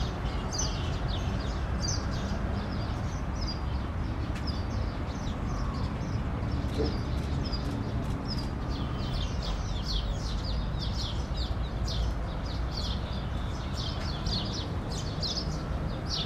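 Small birds chirping over and over with short, high chirps, busier in the second half, above a steady low background rumble.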